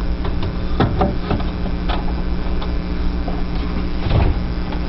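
Several clicks and knocks of plastic refrigerator door shelves being lifted out and handled, over a steady low hum.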